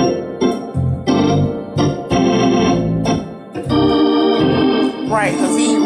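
Two-manual drawbar organ of the Hammond type, played in short, punchy chords with brief gaps between them, then a longer held chord from about four seconds in.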